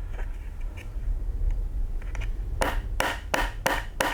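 Hands working a 3D-printed plastic suspension part: a few faint clicks, then a little past halfway a run of short, even scraping strokes, about three a second, over a steady low hum.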